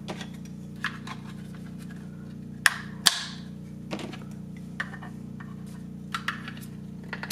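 Hard plastic clicks and knocks as orange plastic clamps are picked up and snapped onto a PLA mold, a sharp clack every second or so, the loudest a little under 3 s in and at the very end. A steady low hum sits underneath.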